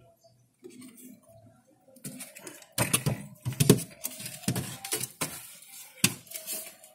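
Bamboo slats and frame knocking and scraping against the cage as a bamboo droppings screen is worked into place under a rabbit cage: a quick run of clicks and knocks starting about three seconds in, with one more sharp knock near the end.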